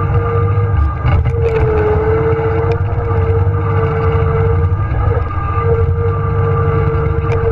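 John Deere 1023E tractor's three-cylinder diesel engine running steadily, a low rumble with a steady whine over it. A few short clanks about a second in and again near the end.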